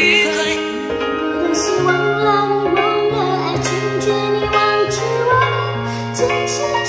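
Woman singing a slow Mandarin pop ballad over a backing track.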